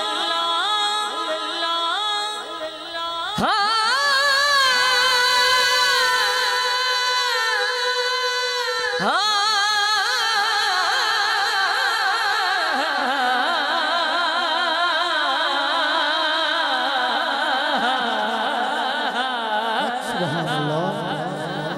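Male voice singing a naat, drawing out long melismatic held notes with a wavering vibrato. New sustained phrases begin about three and a half and nine seconds in.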